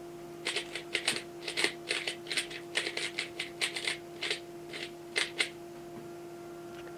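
3x3 Rubik's cube being turned quickly by hand to scramble it: a rapid run of plastic clicks and clacks, about four a second, that stops about five and a half seconds in.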